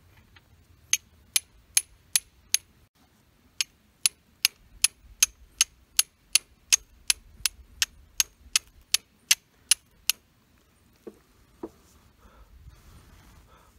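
Flint and steel striking: about two dozen sharp, clinking strikes, a little over two a second with a short pause about three seconds in, throwing sparks onto char cloth until it catches an ember. Two softer, duller taps follow near the end.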